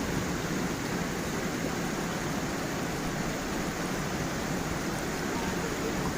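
Stream and small waterfall running steadily over stones, a continuous even rush of water.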